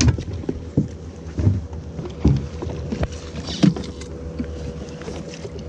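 A boat motor hums steadily while about half a dozen irregular knocks and thumps sound on the boat in the first four seconds.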